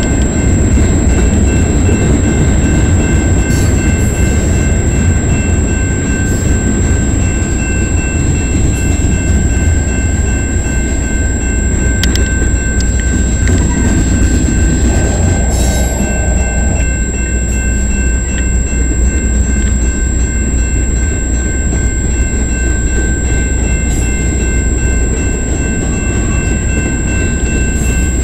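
Loaded freight cars rolling past at close range: tank cars and covered hoppers, a steady, loud rumble of steel wheels on rail.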